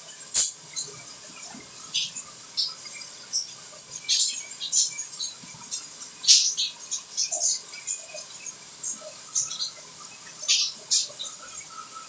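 Light water sounds: an irregular scatter of small drips and splashes over a steady high hiss, with one sharp drip or click about half a second in.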